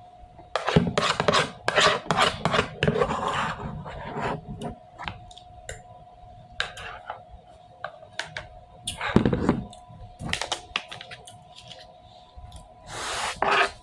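Irregular scraping and clicking of a utensil against a dish or container, with a faint steady hum underneath and a short rushing noise near the end.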